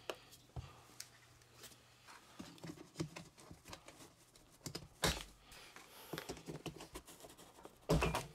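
Scattered light clicks and knocks of hands working the plastic clip fasteners at the base of a large cardboard shipping box, with a louder knock about five seconds in and another near the end.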